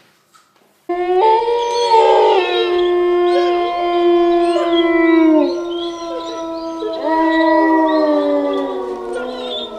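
Wolves howling: a long, steady howl that falls in pitch at its end, then a second howl that sinks as it fades, with other howling voices overlapping.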